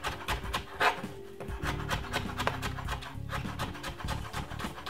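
Knife chopping spring onion on a wooden cutting board: quick, regular taps of the blade striking the board.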